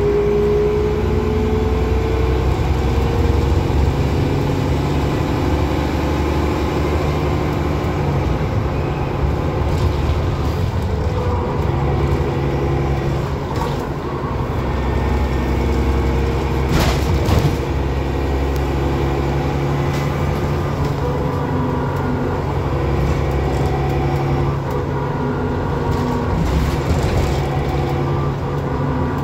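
Transbus Trident double-decker bus's diesel engine heard from inside the passenger saloon, pulling hard on the move, its note rising and dropping as it goes through the gears. A sharp knock partway through.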